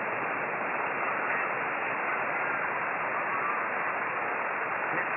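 Single-sideband audio from a FlexRadio shortwave receiver on the 10-metre band: a steady band-noise hiss, cut off sharply above about 3 kHz, with faint traces of a weak voice buried in the noise.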